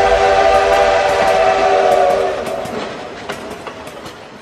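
A multi-tone train horn sounding one long steady chord that stops a little over two seconds in. It is followed by quieter scattered rail clicks that fade away.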